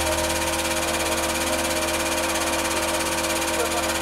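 Hydraulic press's pump motor running steadily with an even hum as the ram lowers.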